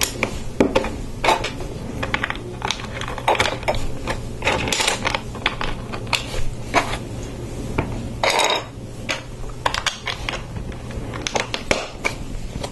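Plastic Lego bricks clicking and clattering as they are handled and pressed onto a baseplate: a string of small sharp clicks, with longer scraping rustles about five seconds in and again near eight and a half seconds.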